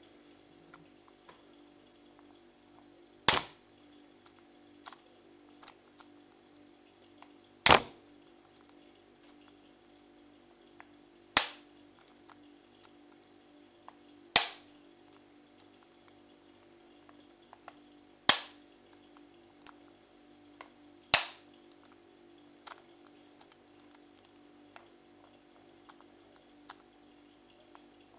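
A bump hammer striking the head of a bump key in a Chubb 6-pin padlock: six sharp knocks, three to four seconds apart, with faint clicks between them as the key is reset. This is repeated bumping that has not yet opened the lock.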